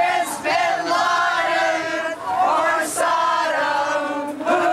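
A small group of older women singing a song together, in sung phrases with short breaks between lines.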